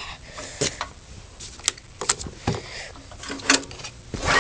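Scattered light clicks and knocks of hands working a stalled gas pressure washer's engine controls, setting the choke, with no engine running. A loud rush of noise starts right at the end.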